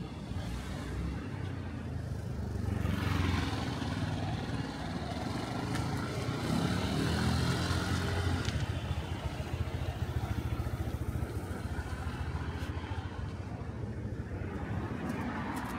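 City street traffic: motor vehicles running past, with one passing close and louder between about three and nine seconds in.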